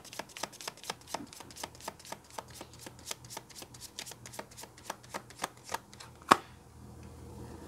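Oracle card deck being shuffled by hand: a quick run of soft card flicks, about six a second, ending with one sharper snap about six seconds in.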